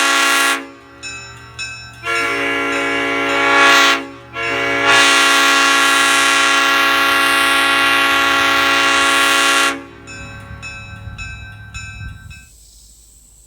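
Replica Leslie S5D five-chime train air horn with bronze Tabby power chambers, sounding a chord in three blasts. The first cuts off just after the start, the second lasts about two seconds and grows louder, and the last holds for about five seconds. Echoes ring on between blasts and after the last one, fading out about two and a half seconds later.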